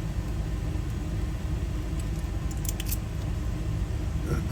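Small metallic clicks of lock wafers and a key being handled in a Ford door lock cylinder during rekeying: a few clicks about two and a half seconds in and one near the end, over a steady low rumble.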